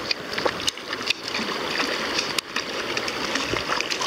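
Fast river water rushing and rippling close to the microphone, a steady watery hiss, broken by a few short sharp splashes, the clearest about a second in and halfway through.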